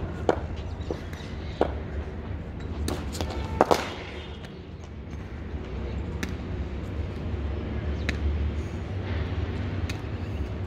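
Scattered sharp knocks of a cricket ball against bat and hard pitch during net practice, the loudest a quick double knock about three and a half seconds in, over a steady low rumble.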